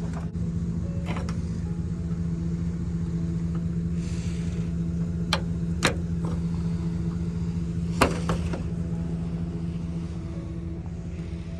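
Electric power sander running steadily on wooden ceiling beams, a constant motor hum, with three sharp knocks about halfway through.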